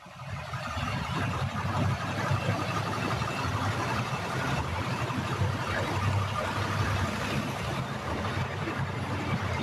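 A motor vehicle engine idling steadily, a low hum under a broad hiss, coming up from quiet over the first second and then holding level.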